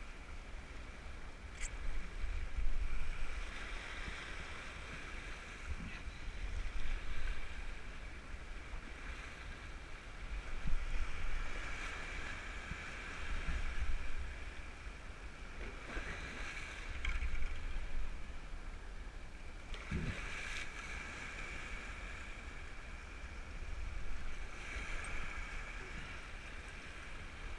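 Shallow surf washing and swirling around a wading angler's legs, swelling every few seconds, over a low wind rumble on the action-camera microphone.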